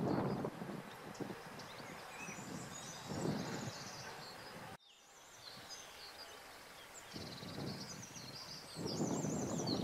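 Songbirds chirping and trilling over a low, noisy rumble that fades after the first half-second and swells again near the end; the sound cuts out for a moment about halfway through.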